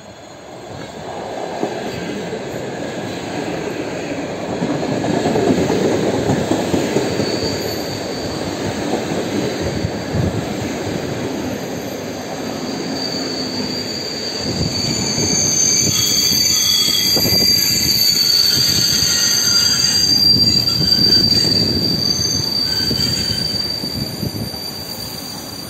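ED4M electric multiple unit pulling in alongside a platform: wheel and running noise swells as the cars come past. From about seven seconds in, a high, steady squeal rides on top as the train slows.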